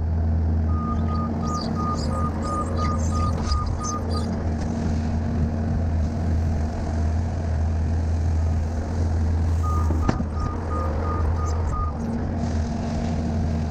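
Skid steer loader's engine running steadily as it works a gravel pile, with its back-up alarm beeping about three times a second in two runs, near the start and again around two thirds of the way in. Some rattling in the first few seconds.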